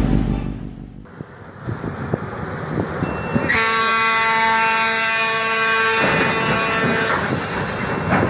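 A ship's horn sounds one long blast of about three seconds, starting about three and a half seconds in.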